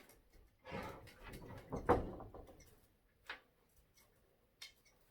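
Rustling and handling noises as decorations are moved about, loudest about two seconds in, followed by two short sharp clicks.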